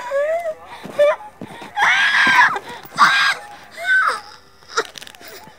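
A woman screaming and crying out in a string of short, strained cries, the longest and loudest one about two seconds in.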